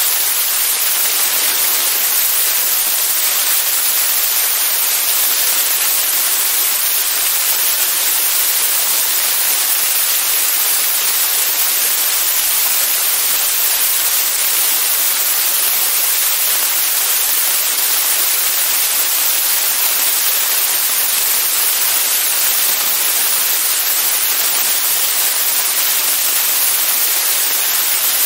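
Steady, loud hiss of slipstream rushing over an outside-mounted camera's microphone on the cowling of a TL-Sting light aircraft in flight, wind noise with no engine or propeller tone standing out.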